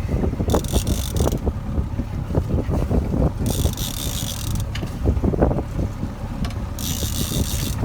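Steady rumble of wind and water on a moving boat, with three short bursts of high ratcheting clicks, each about a second long, from a fishing reel while a hooked fish is being fought.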